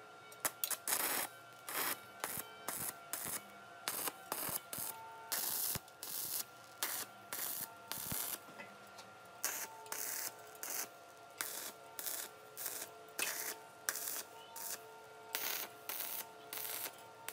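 Stick (arc) welder laying a series of short tack welds on steel tubing with a coated electrode. Brief bursts of arc crackle and sizzle, each under a second long, come about once a second.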